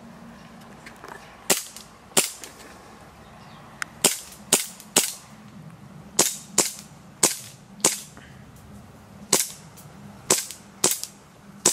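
Tokyo Marui M1911A1 gas blowback airsoft pistol firing a string of about a dozen single shots, each a sharp crack with the slide cycling, at an uneven pace of roughly one to two shots a second.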